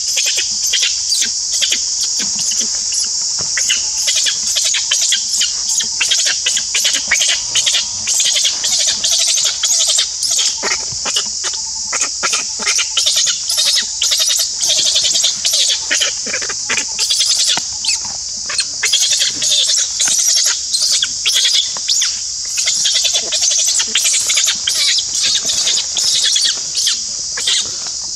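A steady, loud, high buzzing chorus of insects, with frequent light crackles of dry leaves and twigs as a baby macaque moves about on the leaf litter.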